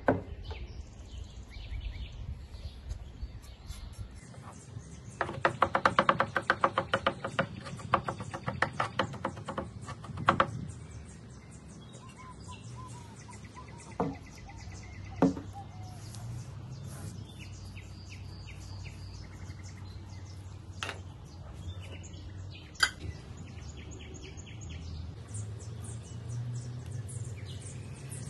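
Chef's knife chopping garlic on a cutting board: a fast run of knife strokes for about five seconds, then a few single knocks of the blade on the board. Birds chirp in the background.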